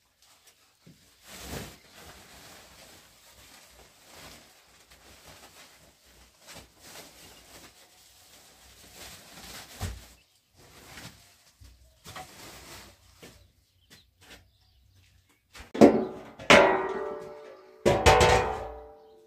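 Cloth rustling as a white cloth is pulled down, shaken and spread on the floor, then large metal baking trays clanging three times and ringing on after each knock.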